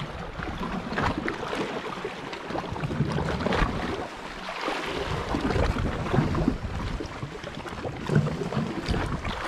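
Seawater sloshing and lapping against shoreline rocks, with wind buffeting the microphone.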